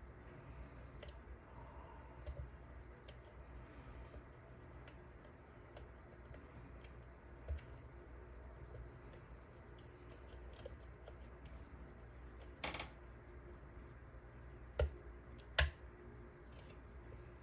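Lock pick working the pins of a dimple lock cylinder: faint scattered ticks and clicks, with a few sharper, louder clicks in the last five seconds.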